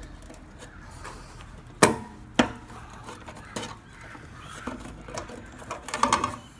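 Clicks and knocks of hand work on a pickup's fuel pump assembly as it is worked against the fuel tank: two sharp knocks about two seconds in, scattered lighter taps, and a short burst of rattling near the end.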